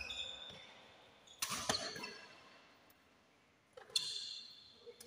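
Badminton rackets striking a shuttlecock in a rally: a few sharp hits about a second and a half in and again near four seconds. Short squeaks of sneakers on the court floor follow the hits.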